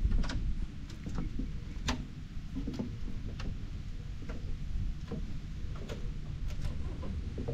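Steady low rumble with scattered sharp clicks and ticks at irregular intervals.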